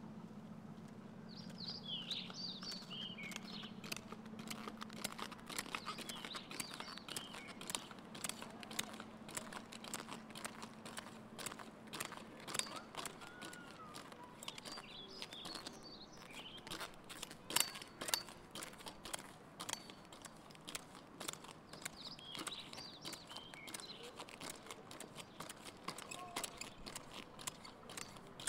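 Pogo stick bouncing on asphalt: a run of short, irregular clacks and knocks as it lands again and again. Birds chirp in spells behind it, and a low hum fades out about halfway.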